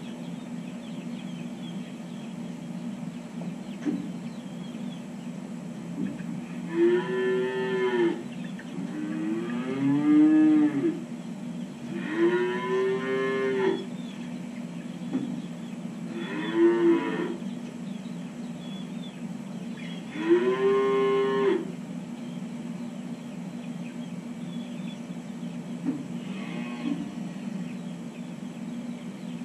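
Calves mooing in a barn, about five drawn-out calls that rise and fall in pitch, each a second or two long, with a fainter one near the end. A steady low hum runs underneath.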